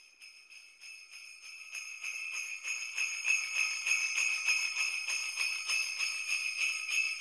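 Jingle bells shaken in a steady, quick rhythm, fading in from silence and growing louder over the first couple of seconds, then ringing on at an even level.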